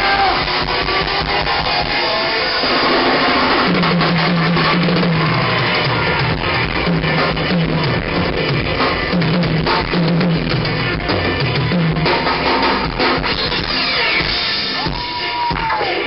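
Live rock band playing loud through a stage PA, with drum kit and electric guitar. A repeating bass riff comes in a few seconds in, and a sliding note is heard near the end.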